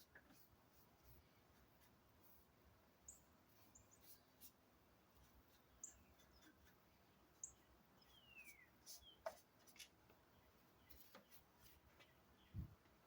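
Near silence with faint, short, high bird chirps every few seconds, one of them a falling chirp about eight seconds in, and a few faint ticks.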